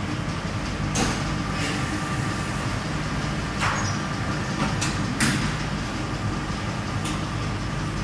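Steady low machine hum of factory equipment, with half a dozen short sharp clicks and rustles scattered through it.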